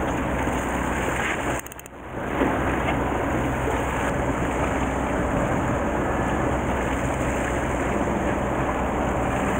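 Steady rumble of a fishing boat's engine with wind on the microphone and sea water washing along the hull. The sound drops away briefly about two seconds in.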